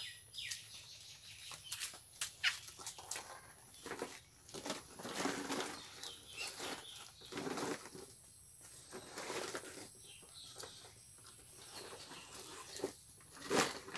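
Woven plastic sack rustling and crinkling in irregular bursts as slabs of raw rubber are pushed into it by hand, with a few sharp clicks.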